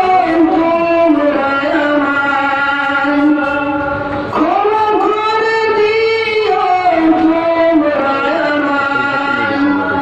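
A man singing a Bengali Islamic gojol, holding long, wavering notes, with a short breath about four seconds in.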